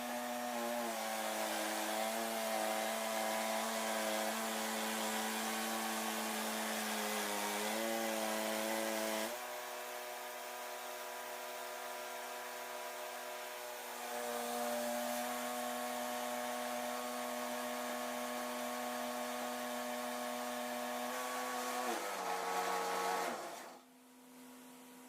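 Wood-Mizer LT10 bandsaw mill running as it saws black walnut, its motor hum sagging and changing pitch several times under the cutting load. Near the end the mill winds down and stops.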